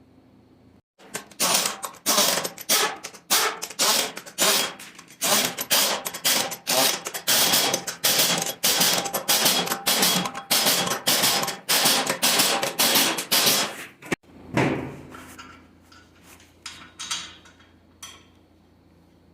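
Hand-tool work on a Toyota 1FZ straight-six engine during its overhaul: a rapid run of sharp taps, about three a second, for some thirteen seconds, then a few scattered taps near the end.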